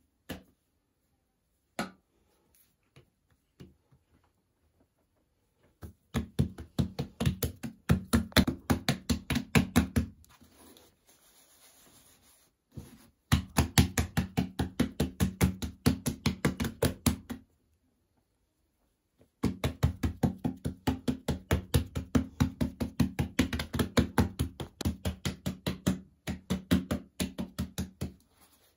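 Hands rapidly patting and pressing bazlama dough flat against a wooden board: dull thuds at about five a second, in three long bouts with short pauses between.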